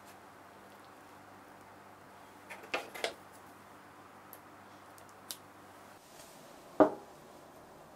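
Faint sticky clicks and squelches of yeast batter being piped from a piping bag into silicone bundt molds, two of them louder about three seconds in. Near the end comes a single sharp knock, the loudest sound.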